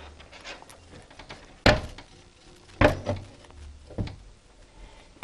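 Two sharp knocks and a few lighter ones from inside a longcase clock's wooden case while the time weight is being hung on its cable.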